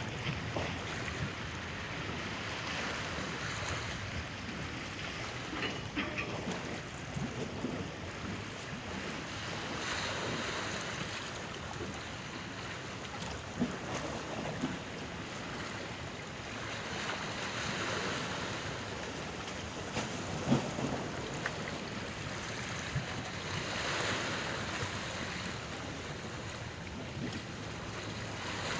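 Sea waves surging against a ferry with wind buffeting the microphone, the wash swelling and easing every several seconds. A few short knocks, the loudest about twenty seconds in.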